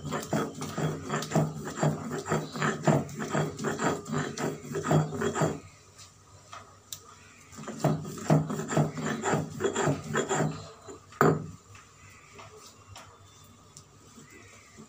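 Stone roller grinding wet pennywort leaves to a paste on a flat stone slab (shil-nora): rhythmic grinding strokes. The strokes stop about five and a half seconds in, start again for about three seconds, and end with one sharp knock near eleven seconds.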